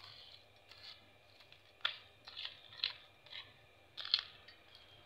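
Dry, crunchy fried namkeen pieces sliding off a ceramic plate and dropping into a glass bowl in a string of short, light rattles and clicks, the loudest cluster about four seconds in.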